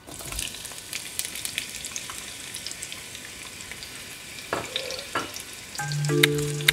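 Sliced onions dropped into hot oil in a frying pan, sizzling and crackling as soon as they land, then stirred with a spatula that knocks against the pan a couple of times. Background music comes in near the end.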